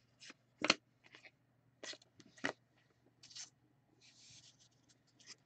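Trading cards being handled and flipped through one by one: several short swishes and taps as the cards slide against each other, with a longer soft rustle about four seconds in.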